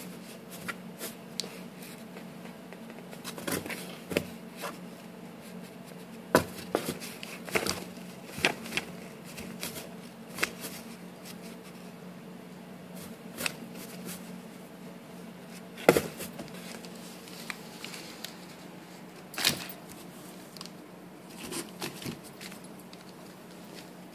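A cat clawing and tearing at newspaper and scratching the cardboard box it sits in: irregular paper rustles and crackles, with a few louder snaps.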